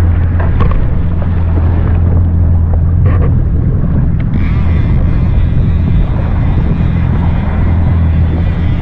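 Yamaha SHO jet ski engine running slow with a steady low hum, under heavy wind buffeting on the microphone.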